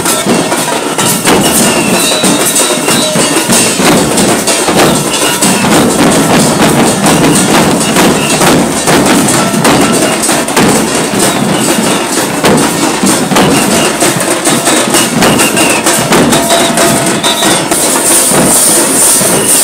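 Drum band of large double-headed dhak (joydhak) barrel drums and smaller shallow drums beaten with sticks, playing a loud, dense, continuous rhythm.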